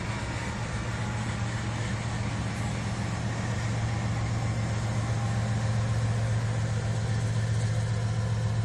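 Steady low engine drone that grows a little louder toward the end.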